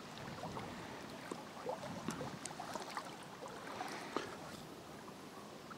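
Quiet trickling and lapping of a shallow river, with scattered light clicks and small drips.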